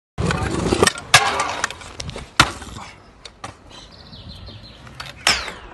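Stunt scooter wheels rolling on concrete, with several sharp clacks as the scooter lands and strikes the ground during tricks.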